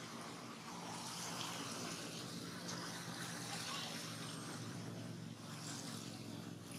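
Steady outdoor background noise: an even hiss with a low hum beneath it, and no distinct events.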